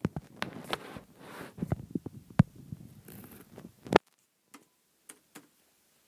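Scattered light clicks and taps from typing on a laptop keyboard and handling the phone, with a sharper tap about four seconds in; after that only a few faint clicks.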